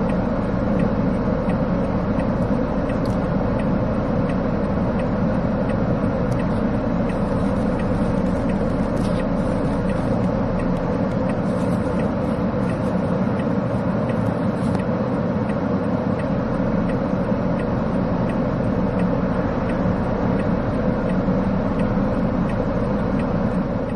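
Steady noise of a running vehicle: a constant low hum with a higher drone above it, unchanging in level.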